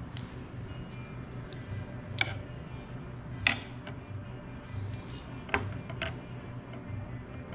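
Background music with a steady pulsing beat, with four sharp clicks or taps over it, the loudest about halfway through.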